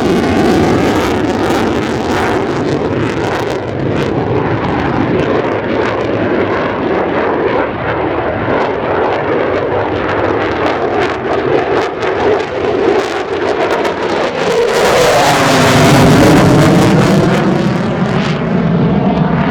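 Jet noise of an F-15DJ Eagle's twin F100 turbofan engines in a display flight, swelling to its loudest with a sweeping, phasing tone about fifteen to seventeen seconds in as the jet passes close.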